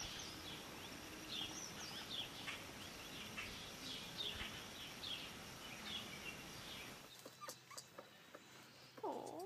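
Small birds chirping, short quick chirps repeated every half second or so, over steady outdoor background noise. About seven seconds in the background changes suddenly, and near the end there is one short animal cry that rises and falls.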